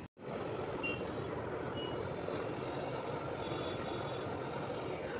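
Gas brazing torch flame rushing steadily as it heats a brazed copper pipe joint on an air-conditioner condenser coil, with a few faint short high beeps.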